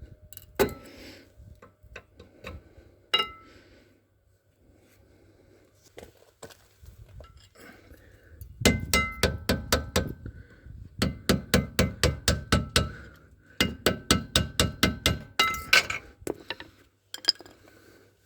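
Rapid metallic clicking from a metal hand tool: three runs of about two seconds each, roughly five ringing clicks a second, with a few single knocks earlier.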